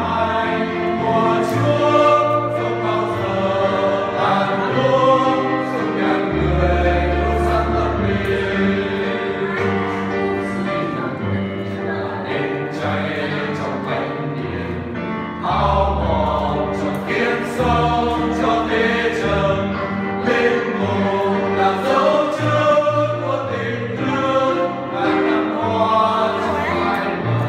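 A small group of mostly male voices singing a Vietnamese spiritual song together, with an electronic keyboard holding long low bass notes underneath.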